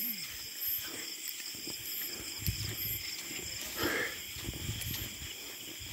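Steady high-pitched chorus of night insects, with faint low thumps throughout and a short faint call about four seconds in.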